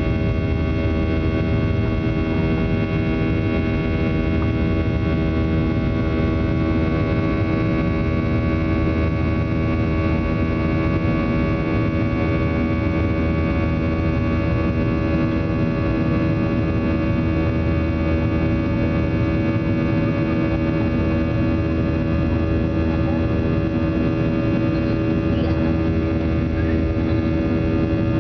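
Steady drone of an airliner's jet engines heard inside the cabin during the climb after takeoff: a low rumble with many steady whining tones over it.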